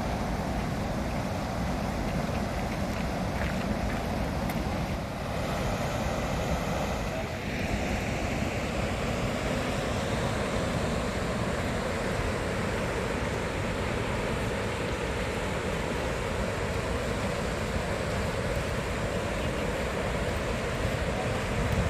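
Goðafoss waterfall's steady rush of falling water, with wind buffeting the microphone.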